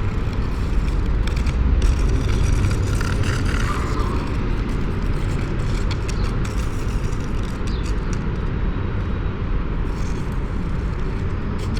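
Steady outdoor city ambience in an open plaza: a continuous low rumble of road traffic with an even wash of noise above it.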